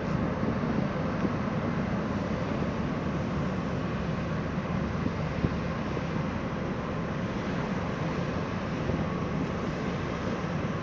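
Steady low rumble of the ferry Superferry's engines as it arrives and manoeuvres in port, with a faint steady hum over it.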